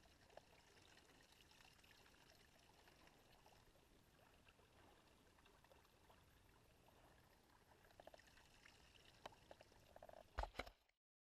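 Near silence: faint outdoor ambience with a few light clicks, then a brief cluster of louder knocks shortly before the sound cuts off.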